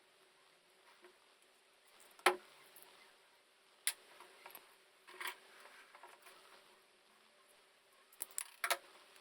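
Scattered clicks and knocks of hand tools and small metal parts being handled: one sharp knock a little over two seconds in, a few lighter clicks around four and five seconds, and a quick run of clicks near the end.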